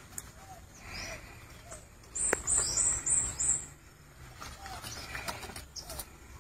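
A small bird chirping a quick run of about five high notes, starting about two seconds in, with one sharp knock among them. Faint rustling and scraping come and go as a man works at a cut banana stump with a bolo.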